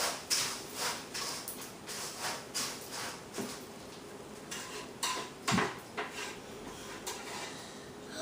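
Spoon stirring Rice Krispies cereal coated in melted marshmallow in a bowl: repeated scraping strokes and knocks of the spoon against the bowl, about two a second at first and sparser later, with a couple of louder knocks.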